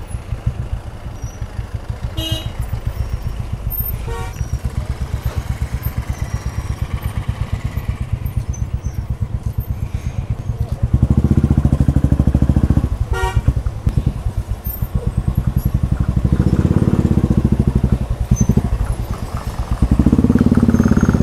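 Royal Enfield Classic's single-cylinder engine running at idle with a steady low beat, then louder under throttle about halfway through and again near the end as the bike creeps forward. A few short horn toots cut in over it.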